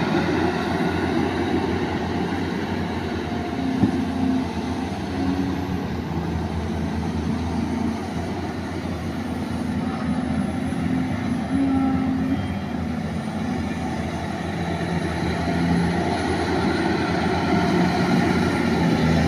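Zoomlion ZE550EK-10 large crawler excavator's diesel engine running steadily under load while it digs, its note stepping up and down as the boom and bucket work. A single brief knock about four seconds in.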